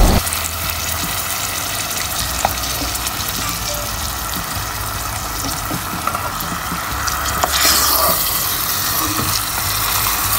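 Small whole rita fish frying in hot spiced masala in a pot, sizzling steadily while a wooden spoon stirs them, with light scrapes and clicks against the pot. The sizzle swells briefly about three-quarters of the way through.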